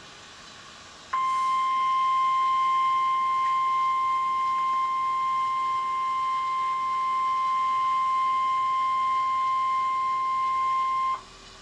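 NOAA Weather Radio 1050 Hz warning alarm tone: one steady, unbroken tone that comes on suddenly about a second in, holds for about ten seconds and cuts off sharply, signalling that a warning message is about to be read. A faint hiss of static lies under it and around it.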